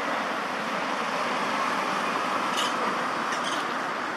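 Steady background noise, with a few brief high-pitched sounds about two and a half and three and a half seconds in.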